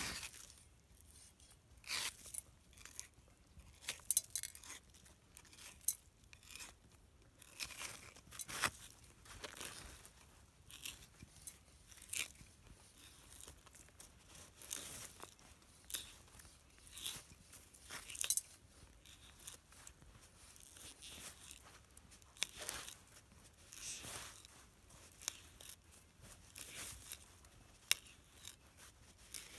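Scotch-eye hand auger boring a tap hole into a birch trunk: irregular crunching and crackling of wood fibres as the bit is turned, with many short sharp cracks.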